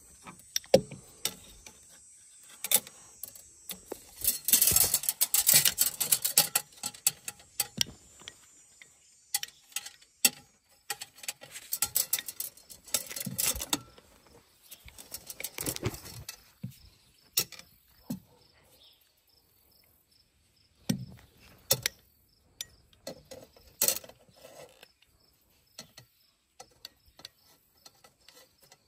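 Scattered clicks and short bursts of clatter from a hand lever tube bender and a length of metal fuel line being handled, bent and test-fitted, busiest in the first half. From about halfway on, insects chirp faintly and steadily in the background.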